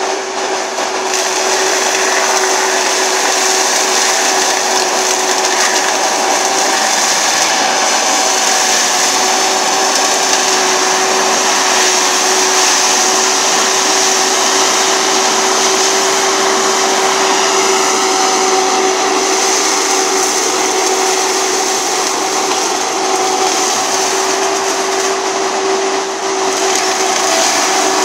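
Galotrax 300 tracked forestry mulcher running steadily at full speed while mulching brush and branches: a constant high hum over the dense noise of the machine's engine and the shredding.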